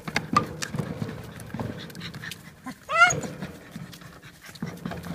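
Dog worrying at a wheelbarrow wheel, panting, with scattered knocks and scrapes against the tyre and frame. It gives one short rising yelp about three seconds in, the loudest sound.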